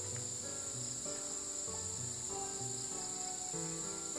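A steady, high-pitched insect drone from crickets, with background music playing a slow melody of held notes underneath.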